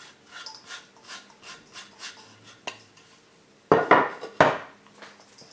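Chopped onions scraped off a wooden cutting board into a stainless steel mixing bowl of ribs: a run of light scraping taps, about three or four a second, then two louder knocks less than a second apart near the end.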